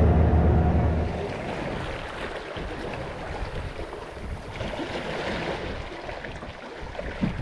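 Boat engine running with a low, steady hum that drops away about a second in, leaving wind and water noise against the hull.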